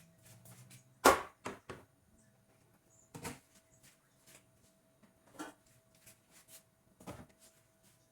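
Handling clatter: a series of sharp knocks and clicks, the loudest about a second in, as refrigerator parts and food items are set back into a fridge.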